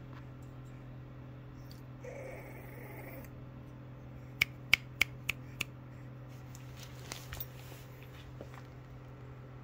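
Bully puppies making small whimpering and grunting sounds: a short whine about two seconds in. Five sharp clicks come in quick succession around the middle, over a steady low hum.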